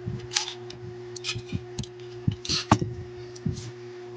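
Scattered light clicks and taps of small tools and phone parts being handled during a smartphone screen repair, over a steady low hum.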